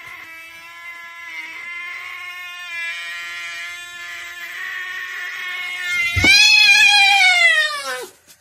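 Domestic cat yowling (caterwauling): one long, drawn-out, steady yowl lasting about six seconds, then a louder yowl that falls in pitch and stops about two seconds later.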